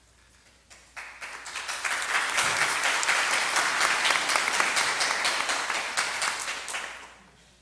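Audience applauding. It starts about a second in, holds steady, and dies away near the end.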